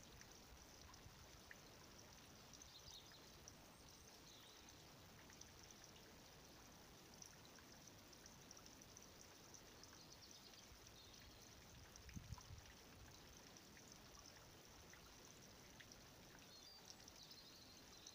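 Near silence: a faint, steady outdoor background hiss, with a few faint high chirps and a soft low thump about twelve seconds in.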